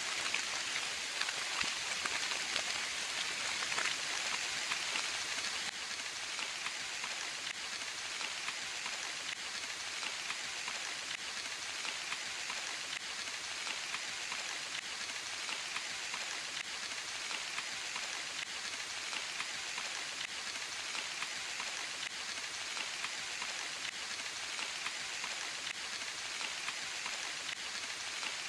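Steady rain falling on leaves and ground, an even hiss full of tiny pattering drops, slightly heavier for the first few seconds.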